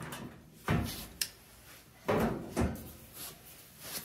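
Lower front access panel of a clothes dryer being pried loose and pulled off: a thump, a sharp click of a clip letting go, then two louder clunks of the panel coming free.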